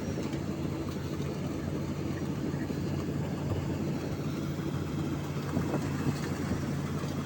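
Combine harvester engine running steadily, a constant low drone.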